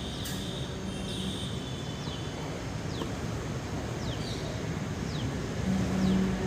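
Steady outdoor background noise with a bird giving short falling chirps about once a second. A low steady musical tone comes in near the end.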